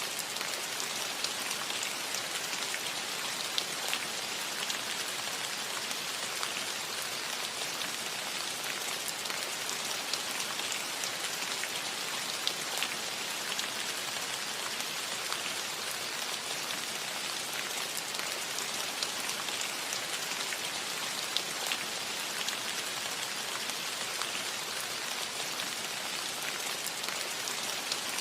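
Steady light rain falling on a metal roof: an even hiss with the sharp ticks of single drops striking the metal here and there.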